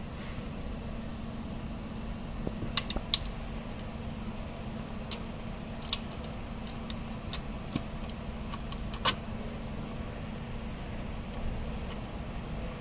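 Scattered light metallic clicks and taps as a starter motor and its mounting bolt are handled and fitted into place by hand, over a steady low hum. The sharpest click comes about nine seconds in.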